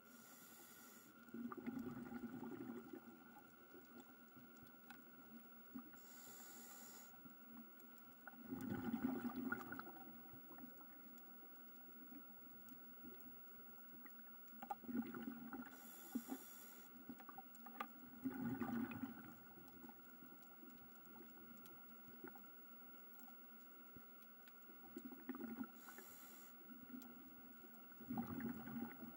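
Scuba diver breathing through a regulator underwater: a short hiss on each inhale, then a burst of bubbling on the exhale, repeating every several seconds over a faint steady hum.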